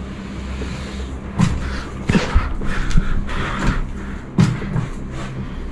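Knocks, bumps and rustles of a handheld camera being picked up and moved about, starting about a second and a half in, over a steady low hum.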